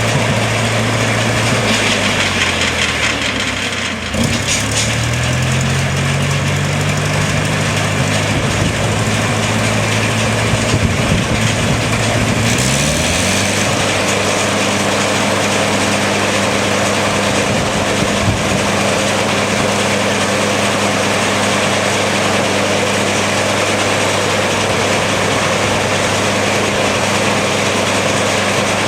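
Four-cylinder four-stroke gas engine of a snowblower attachment running. Its speed falls over the first few seconds, then climbs and settles into a steady higher run from about halfway through.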